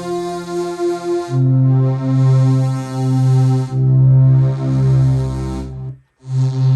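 Korg Minilogue analog synthesizer playing held notes over a heavy bass, the pitch changing every second or two. The sound cuts out briefly near the end and then a short note sounds.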